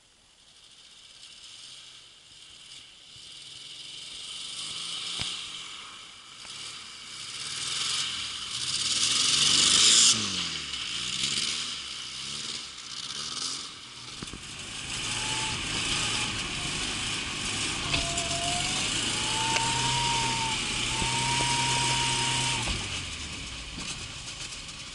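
Lada Zhiguli car engine revving as the car drives. The pitch climbs and falls sharply about ten seconds in, the loudest point, then holds at steady revs from about fifteen seconds and drops off suddenly near the end.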